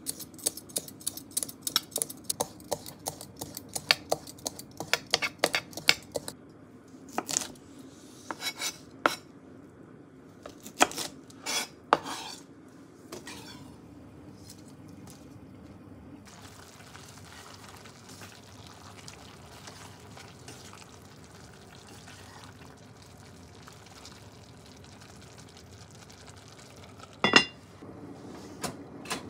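Vegetable peeler scraping down asparagus stalks in quick strokes, about three or four clicks a second, for the first six seconds; then scattered knocks and clinks. A faint steady hiss sets in about halfway, and one loud metallic clank comes near the end.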